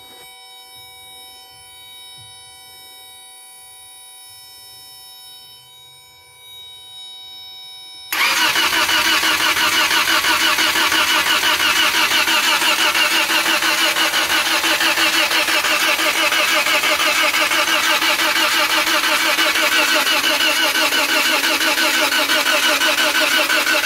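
A faint steady tone for about eight seconds. Then the starter motor cranks the four-cylinder engine continuously, with a fast, even pulsing. The engine does not fire, because the ignition coils are pulled out.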